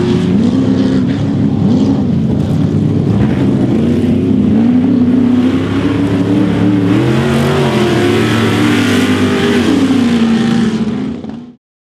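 Formula 4x4 off-road race truck engines revving up and down repeatedly as the trucks race past on a dirt track. The sound fades out quickly near the end.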